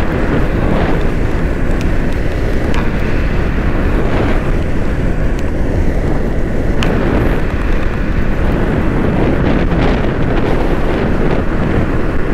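Steady wind buffeting on the microphone of a moving motorcycle, with road and engine noise beneath it and a few brief clicks.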